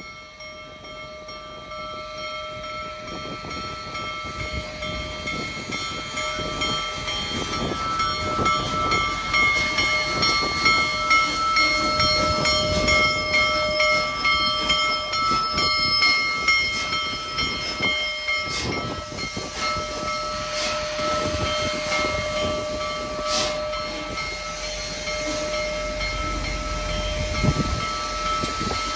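Union Pacific Big Boy 4014, a 4-8-8-4 articulated steam locomotive, approaching and growing steadily louder, with several steady high ringing tones held throughout.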